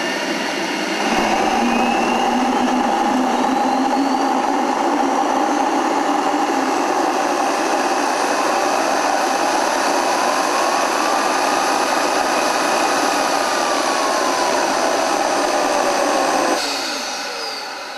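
Home-built GR-5A twin-shaft gas turbine engine during startup: a loud steady rush with a whine that climbs steadily in pitch over the first several seconds, then holds high, and a second tone that rises and falls midway. About sixteen and a half seconds in, the sound drops sharply in level and the whines fall in pitch.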